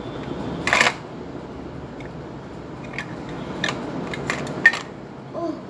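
Plastic toy kitchenware handled: a toy utensil and plastic toy food tapping and clicking against a toy pot, with a short clatter just before a second in and several light clicks later on. A brief hummed voice sound near the end.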